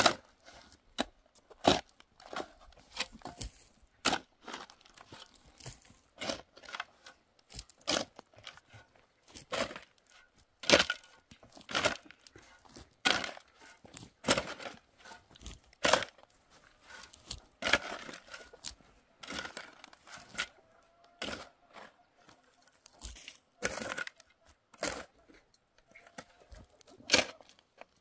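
Shovel and pick digging into dry, stony soil: sharp strikes and scrapes of the metal blade into earth and stones, irregular, about one a second.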